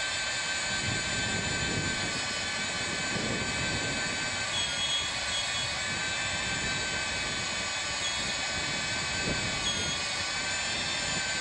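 Hougen HMD150 magnetic drill's motor running under load as its cutter bores through steel plate: a steady whine with several high tones.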